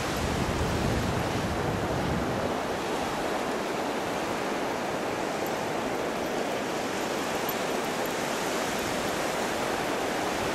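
Sea surf: small waves breaking and washing in as a steady rush.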